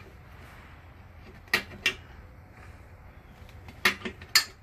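Side cover of a Suzuki Boulevard S50 motorcycle being worked off its two mounting pegs by hand. A few sharp clacks: two about a second and a half in, and a quick cluster of three near the end.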